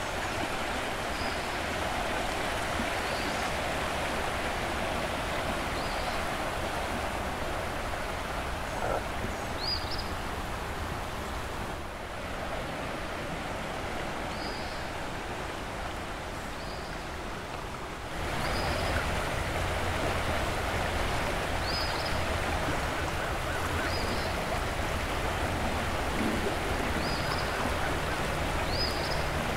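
Floodwater rushing past a bridge from an overflowing creek, a steady wash of water noise. About eighteen seconds in it grows a little louder and a low steady hum joins it.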